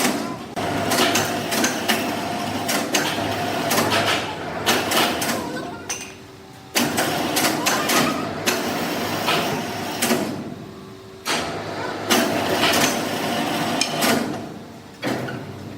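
Sawmill machinery running, with a clatter of sharp knocks over a steady machine hum. The noise comes in loud stretches broken by short lulls.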